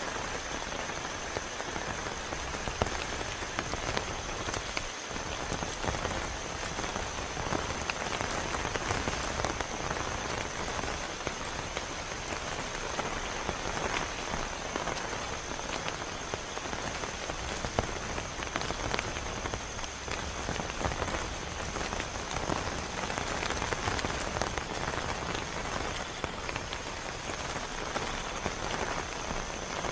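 Heavy rain falling steadily, a dense even hiss with many sharp individual drop hits.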